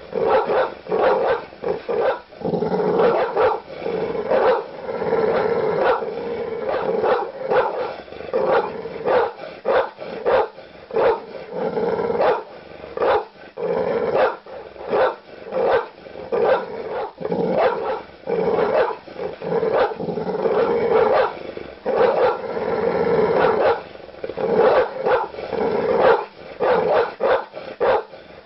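Large dog barking aggressively with deep, loud woofs, the barks coming in fast runs with short pauses between them.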